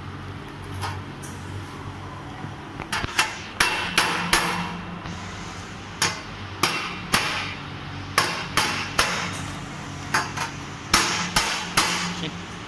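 Hammer blows on thin welded galvanized steel sheet: about fifteen sharp, irregular metallic knocks with a short ring, starting about three seconds in. A steady low hum runs underneath.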